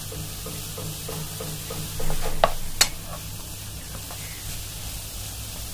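Spatula stirring the chicken and vegetable filling in a frying pan, with a run of light taps and scrapes and two sharper knocks of the spatula on the pan about two and a half seconds in, over a steady low hum.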